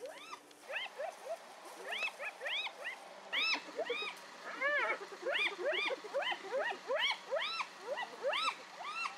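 A pack of spotted hyenas giggling and squealing: many short calls that rise and fall in pitch, overlapping at about three or four a second and getting busier a few seconds in. This is the excited calling of hyenas mobbing a leopard.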